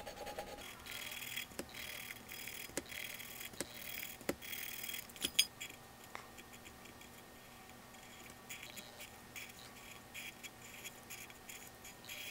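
Black Sharpie felt-tip marker drawing zigzag lines on a paper-covered tin can: quick, repeated scratchy strokes with light ticks. The strokes are busiest in the first half and fainter after that.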